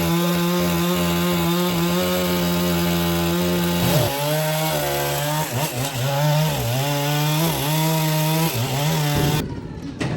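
Power saw cutting wood: the motor runs at a steady pitch, then from about four seconds in its pitch dips and recovers several times as it bogs under the load of the cut, and it stops shortly before the end.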